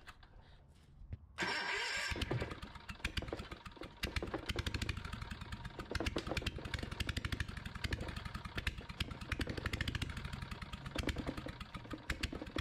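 Onan BF43M flat-twin engine with no muffler fitted: the electric starter cranks it about a second and a half in, and it fires and runs with rapid, loud popping from the open exhaust. It struggles to stay running, which the owner puts down to too little throttle with no throttle cable fitted.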